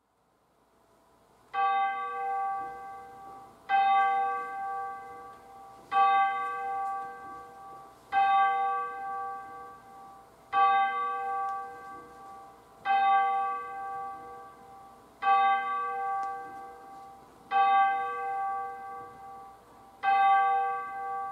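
A single bell tolls the same note nine times, a little over two seconds apart. Each stroke rings and fades before the next, as a call to worship.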